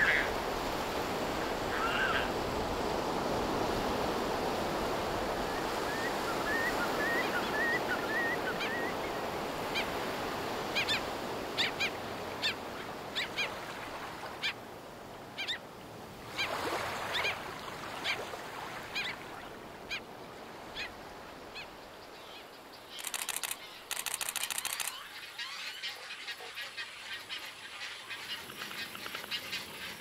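Calls of a mixed flock of coastal seabirds over a steady wash of surf: short, scattered calls, most frequent around the middle, while the surf fades through the second half.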